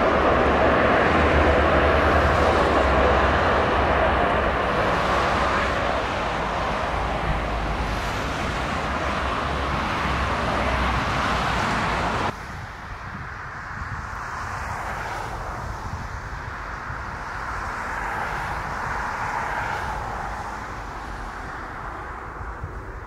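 Airbus A380 jet engines running as the airliner passes: a loud, steady rumble with a low hum that slowly fades. About twelve seconds in, the sound cuts abruptly to a quieter, more distant jet noise that swells and then fades away.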